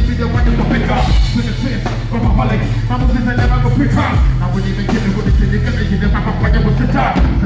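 A live band plays a steady groove, with a heavy bass line and a drum kit keeping a regular beat.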